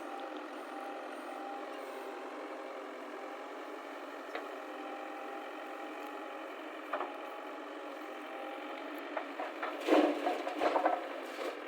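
JCB backhoe loader's engine running steadily, with a burst of loud knocks and clatter about ten seconds in.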